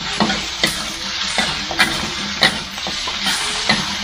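Chicken pieces sizzling in a wok while a metal spatula scrapes and knocks against the pan in repeated strokes, about seven in four seconds, over a steady frying hiss.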